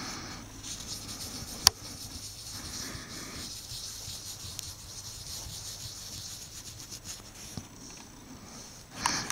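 Cotton swab rubbing and scrubbing over a laptop processor to clean off old thermal paste: a steady soft scratchy hiss. A single sharp click comes nearly two seconds in.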